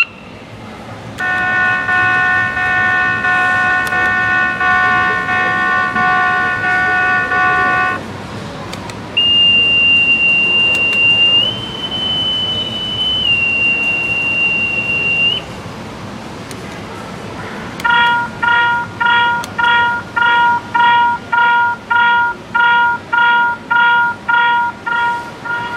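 A series of electronic alarm signals: first a steady multi-tone horn for about seven seconds, then a single high tone that steps up in pitch and back down, then a tone pulsing on and off about twice a second.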